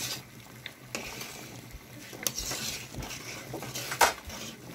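A spoon stirring a pot of boiling dried-fruit compote: liquid swishing, with light scrapes and knocks against the pot, the sharpest knock about four seconds in.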